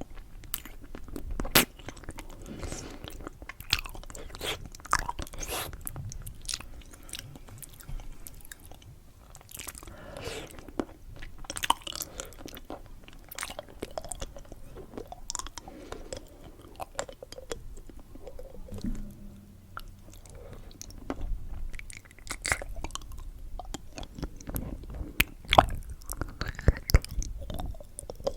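Candy being chewed and crunched close to the microphone, with many irregular sharp clicks.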